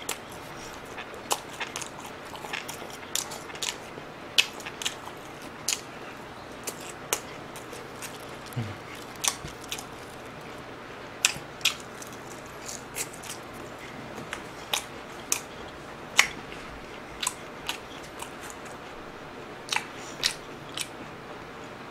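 Close-miked chewing of fried chicken and french fries: irregular short crunches and wet mouth clicks, about one or two a second.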